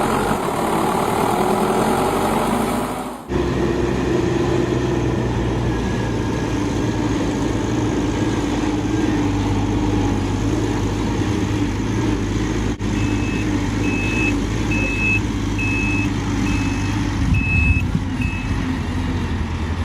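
Heavy diesel engine of a construction vehicle running steadily. Over it, a reversing alarm beeps seven times in a row, about one beep a second, in the later part.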